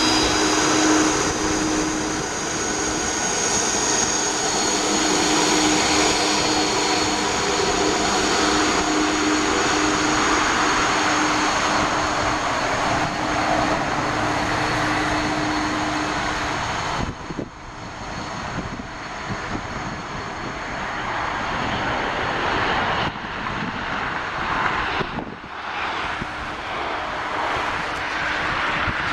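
Airbus A330-223's twin Pratt & Whitney PW4000-series turbofans running at taxi power as the airliner rolls past and away, a steady whine over a rushing roar. About halfway through the steady whine drops out after a brief dip, leaving a broader rush of engine noise.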